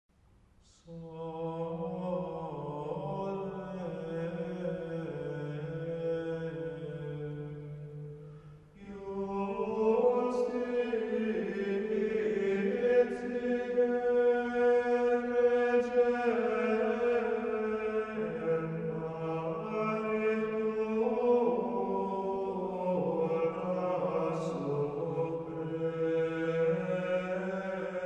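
Slow, solemn choral chant music: long sustained sung notes moving in steps, entering about a second in and growing fuller after a brief dip about a third of the way through.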